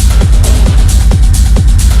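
Techno DJ mix playing loud: a steady four-on-the-floor kick drum at a bit over two beats a second, with crisp off-beat hi-hats over a droning synth bed.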